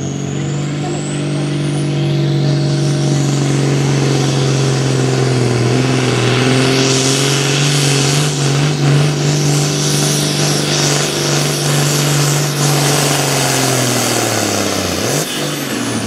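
Enhanced farm pulling tractor's turbocharged diesel engine under full load, pulling a weight-transfer sled, with a high turbo whistle over the engine note. About fifteen seconds in the engine comes off throttle at the end of the pull and the whistle falls away.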